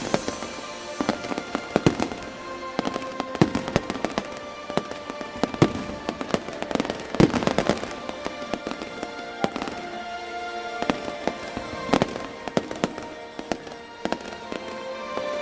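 Fireworks display, with many sharp bangs and crackles from bursting shells coming in irregular clusters, over music played through loudspeakers.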